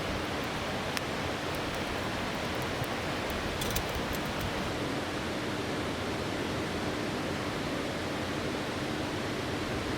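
River water rushing steadily over rocks, with a few faint light clicks about a second in and again around three and a half seconds in.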